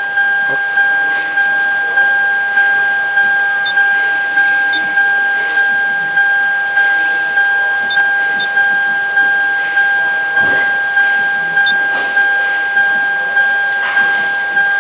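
Car's electronic warning chime sounding over and over, a steady two-note tone that pulses about one and a half times a second, each pulse starting sharply and fading.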